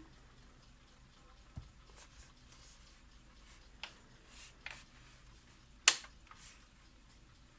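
Scattered clicks and taps from the Impex Rhythm alarm clock being handled, with one sharp click about six seconds in.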